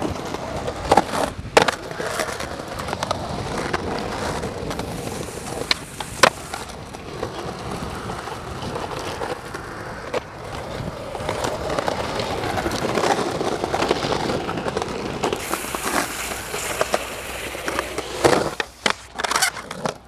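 Skateboard wheels rolling on rough concrete, with several sharp clacks of the board striking the ground, including a few about a second in, one around six seconds in, and a cluster near the end.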